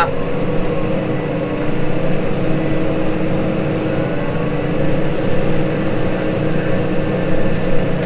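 Case Maxxum 150 tractor working under load, pulling a disc cultivator through ploughed soil, heard from inside the cab: a steady engine drone with a hum that wavers slightly in pitch partway through.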